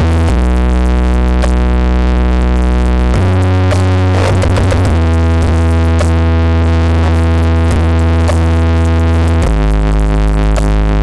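Loud electronic dance remix built on long held, very deep synthesizer bass notes that shift to a new pitch every few seconds, with higher synth chords above them.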